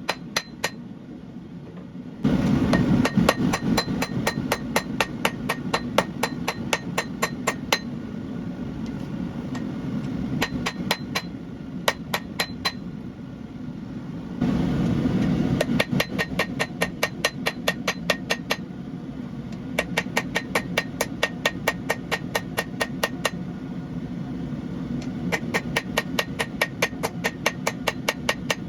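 Hand hammer striking hot Damascus steel on an anvil, about three ringing blows a second in runs broken by short pauses. A steady low rushing noise runs underneath and grows louder about two seconds in and again about fourteen seconds in.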